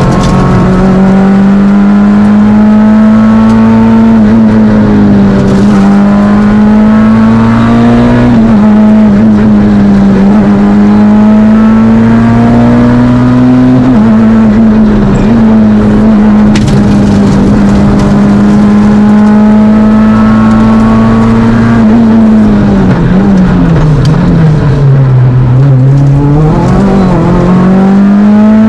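Fiat Panda Kit Car rally engine driven hard from inside the car. The pitch climbs steadily and drops sharply at each of several gear changes. About three-quarters of the way through, the revs fall well down as the car slows, then climb again.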